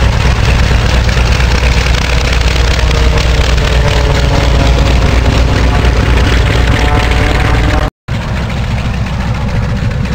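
Vought F4U Corsair's big radial piston engine running at taxi power as the fighter rolls close past, a loud, steady, deep rumble. After a short break near the end, a more distant radial engine of a taxiing Wildcat fighter, somewhat quieter.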